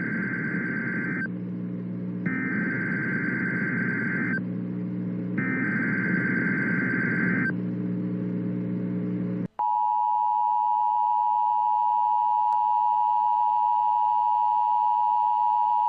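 Emergency Alert System tones: three harsh data bursts of the SAME header, each about two seconds long with short gaps between them, encoding a National Weather Service flash flood warning. About nine and a half seconds in, the steady two-tone EAS attention signal starts and holds, the tone that precedes the spoken alert.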